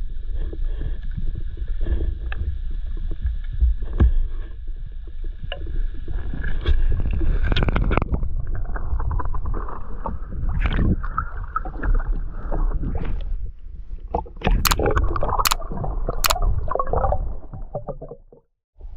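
Muffled water noise heard through an underwater camera housing: a low rumble and gurgling with scattered knocks. Three sharp clicks come in quick succession near the end.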